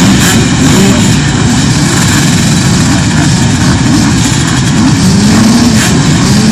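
A large pack of off-road motorcycles idling together on a start line: a loud, dense engine drone, with single bikes briefly rising and falling in revs as riders blip their throttles.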